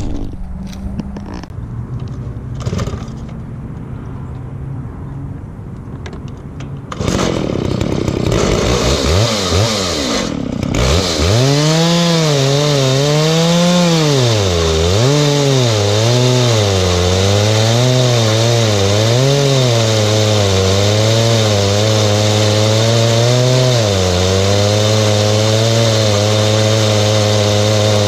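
Chinese-clone Stihl MS660 two-stroke chainsaw with a 42-inch bar, mounted in a chainsaw mill, ripping a slab from a dense, dry red gum eucalyptus log. After a quieter first few seconds with some knocks, the saw comes in loud about seven seconds in. It revs up and bogs down again and again as the chain bites into the cut, then settles to a steady, loaded speed for the last several seconds.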